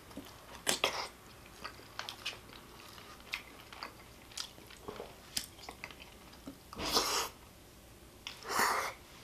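Close-up mouth sounds of a man eating chili with stringy melted cheese from a spoon: soft wet chewing clicks and smacks scattered through, with two louder breathy sounds about 7 and 8.5 seconds in.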